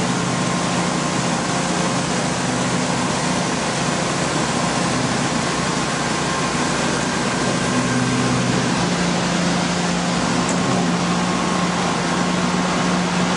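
Somero S-840 laser screed running steadily as it levels fresh concrete: a constant engine hum with an even hiss over it.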